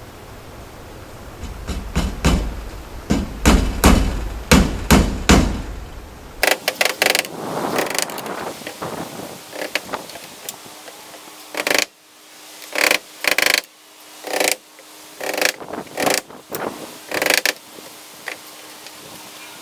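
A series of sharp knocks from hand-tool work, about two a second at first, then sparser, irregular clacks, with a faint steady hum joining about ten seconds in.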